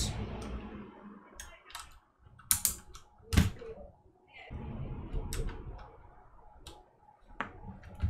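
Plastic keycaps being pressed onto the Cherry MX Brown switches of a mechanical keyboard: a scattering of separate sharp clicks and clacks, the loudest a few seconds in, with soft handling rustle between them.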